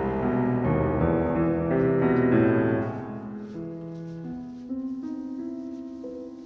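Background music: piano with held notes changing about once a second, growing quieter about three seconds in.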